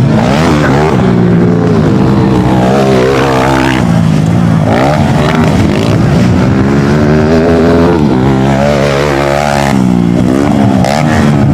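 Small trail motorcycle engines racing on a dirt track. More than one engine is heard at once, each revving up and down so that their pitches rise, fall and cross over one another.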